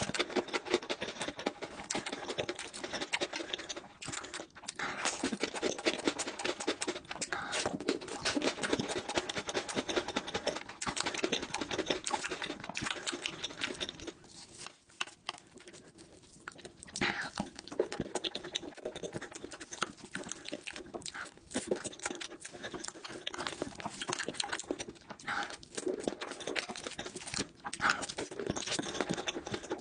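Close-up eating sounds: a person chewing and smacking their lips in quick, wet clicks, easing off for a couple of seconds about halfway through.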